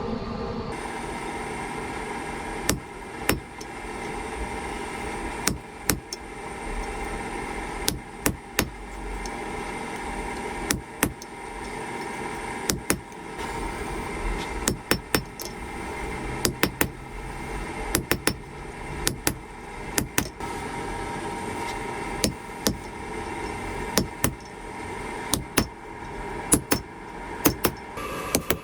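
Hand hammer striking a hot railroad spike on an anvil while forging it, in irregular groups of one to three sharp blows every second or two, over a steady background noise.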